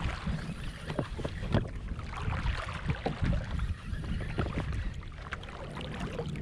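Water and wind noise around a kayak at sea: a steady low rumble with scattered small knocks and clicks against the hull.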